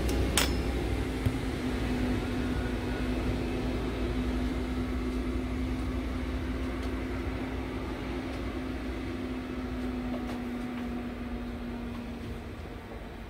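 A steady mechanical hum holding one pitch over a low rumble, slowly fading away; a sharp click about half a second in.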